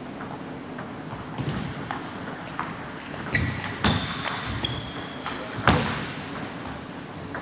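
Table tennis rally: the celluloid ball clicking off bats and table at an irregular pace, with several short high squeaks of rubber-soled shoes on the wooden floor.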